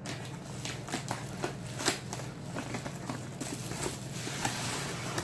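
Product packaging being handled and opened: a run of small crackles, crinkles and taps, with a few sharper clicks about two seconds in.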